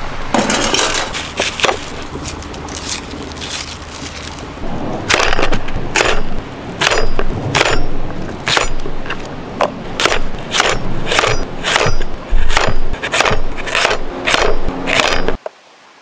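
Small hatchet chopping an onion on a wooden cutting board: a run of sharp knocks, just under two a second, that stop abruptly near the end. Before the chopping starts, about five seconds of a steadier crackly noise.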